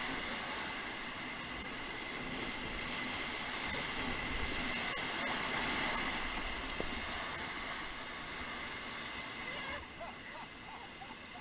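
Whitewater rushing and splashing around a raft running a river rapid, a steady churning noise that eases near the end.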